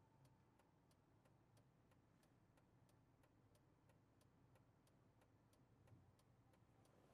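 Faint, even ticking of a Volvo's turn-signal indicator heard in the cabin, about three ticks a second, over a low steady hum.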